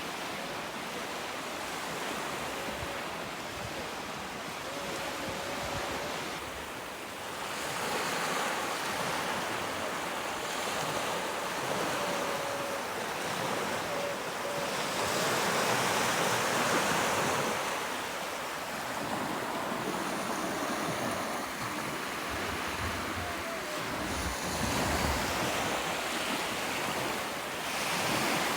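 Sea waves breaking on the shore, the surf swelling and falling back several times, with some wind rumbling on the microphone.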